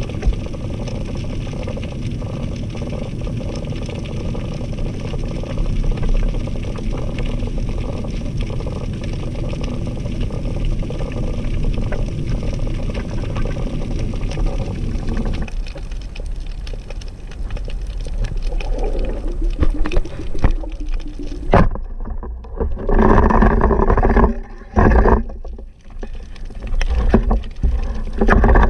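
Underwater water noise picked up by a diving camera: a steady low rush with fine crackling for the first half. In the last third it turns into louder, choppy gurgling and sloshing surges as the diver moves.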